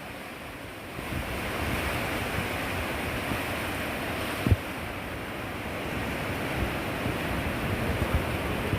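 Sea waves washing onto a beach, a steady rushing surf that swells about a second in, with wind buffeting the microphone and a brief low thump of wind about four and a half seconds in.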